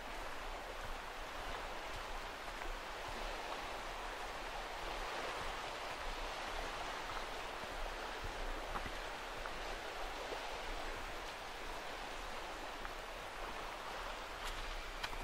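Steady, even rush of running water with a few faint scattered ticks.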